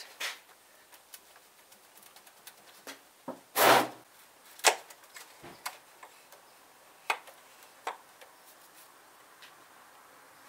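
Hands working a rubber coolant hose loose from its fitting on a BMW N52 engine: scattered clicks and knocks of the hose and its clip, with a louder scrape about three and a half seconds in and a few sharp clicks after it.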